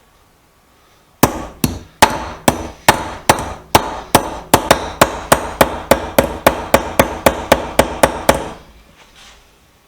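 Hammer blows on a bent steel screwdriver shaft laid on a Dunlap anvil, straightening it: about two dozen sharp, ringing metal-on-metal strikes that quicken to about four a second. They start about a second in and stop near the end.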